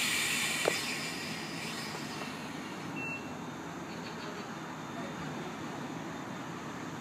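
CPTM Series 4400 electric multiple unit starting to pull away from the platform. A burst of compressed-air hiss runs for about two seconds, with a sharp click just under a second in and a short high beep about three seconds in, then the steady running noise of the train getting under way.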